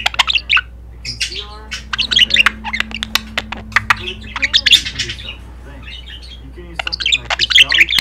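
White budgerigar chattering: a run of quick warbling chirps, clicks and squawks in short bursts, with a lull past the middle and a dense flurry near the end.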